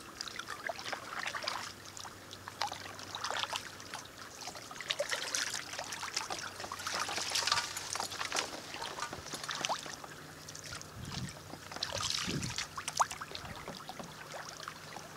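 Kayak paddling in shallow water: the paddle dips and lifts, water drips and trickles off the blade and laps at the hull, with small splashes and several louder swells of splashing.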